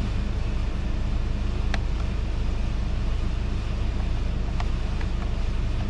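2013 Kia Optima's 2.0-litre turbo engine idling with a steady low hum, with a few light clicks of the trip buttons being pressed, one about a second and a half in and several near the end.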